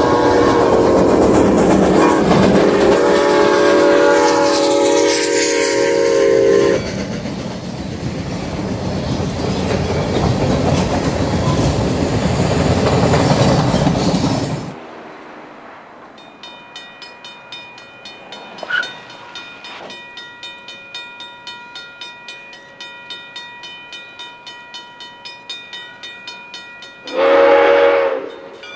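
Soo Line 1003, a 2-8-2 Mikado steam locomotive, sounding its chiming steam whistle for about seven seconds as the train passes, then the rumble and clatter of the train going by. After a sudden drop, a railroad crossing bell rings about twice a second, and near the end a short, loud steam whistle blast.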